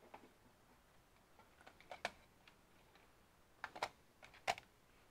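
Scattered sharp computer mouse and keyboard clicks, a few at a time, bunched about two seconds in and again near four seconds in, over a quiet background.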